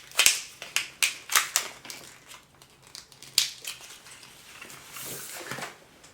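Packaging being handled and opened: sharp crinkles and clicks, several in quick succession in the first two seconds, another a little past halfway, then a softer rustle near the end.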